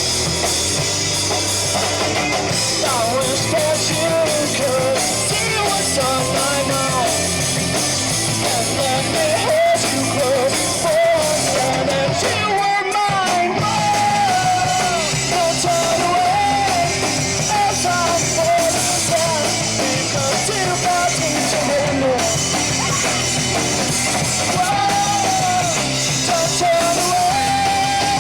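Live rock band playing loud with electric guitars, bass and drum kit, a melodic line running over the top; the low end drops out briefly about halfway through, then the full band comes back in.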